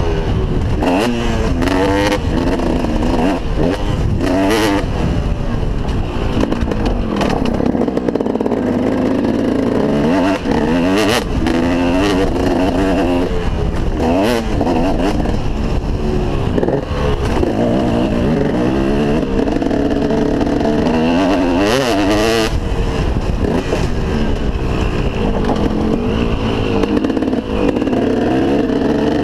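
KTM SX 250 two-stroke motocross engine revving up and down again and again as the bike accelerates, shifts and rolls off along a dirt track, heard from a helmet-mounted camera. Short knocks and clatter from the bike over rough ground come through now and then.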